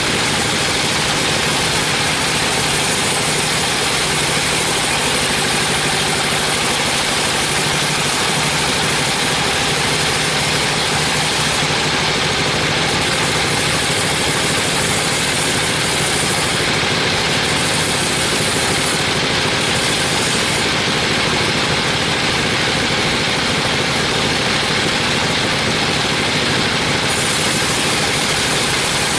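A 42-inch sawmill bandsaw running and sawing through teak wood: a loud, steady, unbroken machine noise with a hiss of the blade in the cut.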